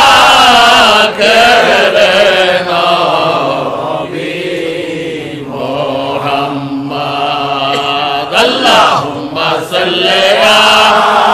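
Milad chanting: a male voice chanting Islamic devotional praise in long, held melodic phrases, softer in the middle stretch.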